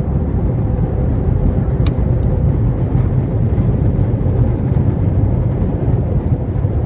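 Airbus A320 rolling on the runway after landing, heard from inside the cabin: a steady low rumble of engines and wheels with a faint steady hum. A brief click about two seconds in.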